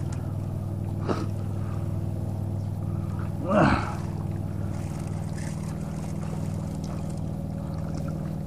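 Steady low engine drone, like a motorboat out on the lake, with a faint click about a second in. About three and a half seconds in, a short falling voice cry rises over it.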